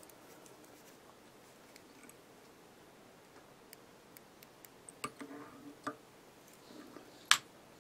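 Faint ticks and small clicks of a whip-finish tool and fly-tying thread being handled at the vice while the head of the fly is whip-finished, growing busier after about five seconds, with one sharp, louder click near the end.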